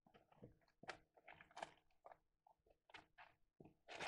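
Loose electronic components (resistors, capacitors) rattling and clinking in a plastic tub as a hand rummages through them. It is a faint, quick, irregular run of clicks and rustles, loudest near the end.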